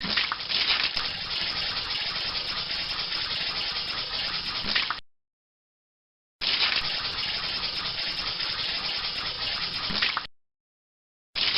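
Sound effect of a man urinating: a steady stream of liquid splashing, running about five seconds, stopping, then a second stream of about four seconds, and a short spurt near the end.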